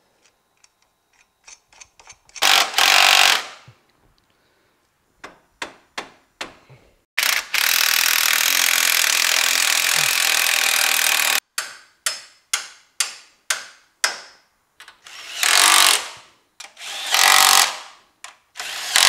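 Cordless impact wrench hammering bolts tight on a car's front coilover, at the steering knuckle and the strut-top mount. It runs in several bursts, the longest about four seconds, with a string of quick short blips in between.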